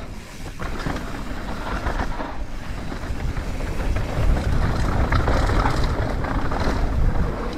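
Wind buffeting an action camera's microphone and a mountain bike's tyres rolling fast over dirt singletrack, with the rattle and chatter of the bike over the rough ground. It grows louder about halfway through as the speed picks up.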